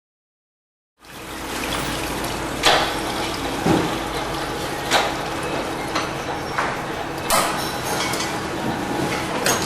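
VLW 100R tray-type vial washing machine at work, starting about a second in: a steady rush of spraying water over a faint motor hum, with sharp metallic clanks every second or two.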